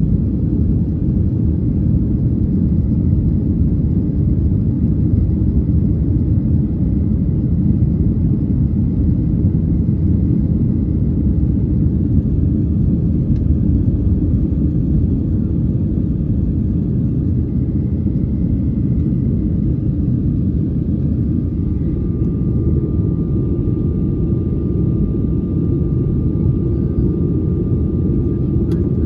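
Boeing 737 cabin noise during the climb after takeoff: the steady low rumble of engines and airflow heard from inside the cabin, with a faint steady high whine over it. A small click near the end.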